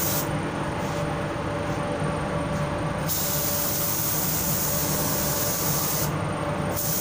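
Compressed-air paint spray gun hissing as it sprays white paint onto a masked car bumper, over a steady rush of air. The high hiss stops for about three seconds shortly after the start and again briefly near the end.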